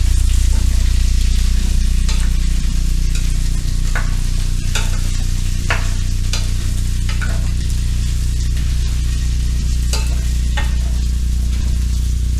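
Chicken and potato pieces sizzling as they fry in a pan, while a utensil is stirred through them, clicking and scraping against the pan every second or so. A steady low hum runs underneath.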